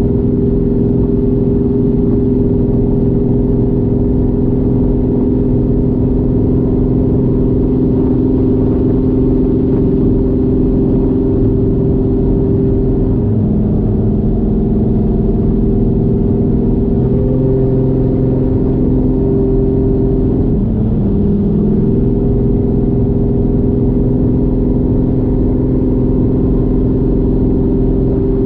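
Turbocharged 1JZ inline-six in a Fox body Mustang cruising at steady part throttle, heard from inside the car. Its note drops about halfway through, climbs back a few seconds later, then dips briefly once more before settling.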